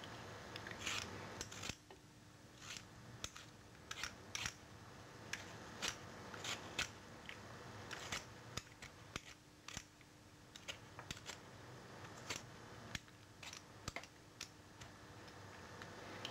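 Speed peeler scraping along a potato in short, irregular strokes, the peel coming off in quick scratchy swipes.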